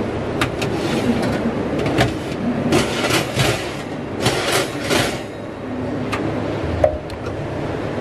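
Wire oven shelves clinking and rattling as they are handled and slid on their runners: a series of sharp metallic clicks, bunched in the middle, over a steady background rumble.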